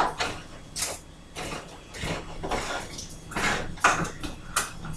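Can opener being turned around a can lid: a short rasping scrape with each turn, about two a second, unevenly spaced.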